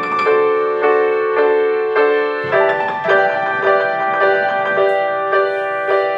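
Background music: a piano playing a steady pattern of repeated notes, changing chord about halfway through.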